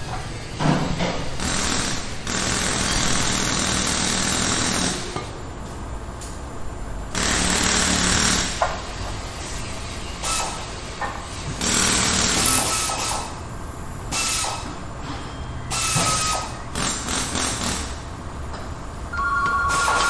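Car repair shop ambience: repeated bursts of pneumatic air tools, each lasting one to three seconds, with a few sharp metal knocks between them. Two steady tones start near the end.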